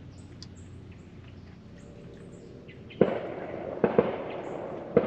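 Four distant bangs, each with a long echoing tail. The first comes about three seconds in, two follow close together about a second later, and the last comes near the end.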